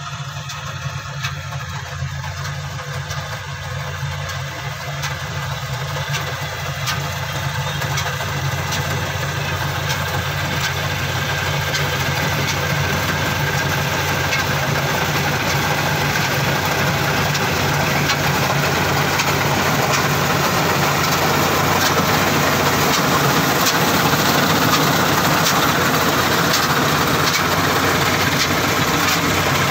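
CLAAS Crop Tiger 30 Terra Trac tracked combine harvester running steadily while it harvests rice, growing gradually louder as it comes closer.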